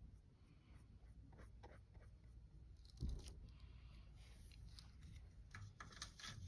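Faint brushing and scratching of a paintbrush laying paint onto a canvas, in short strokes, with a soft knock about three seconds in.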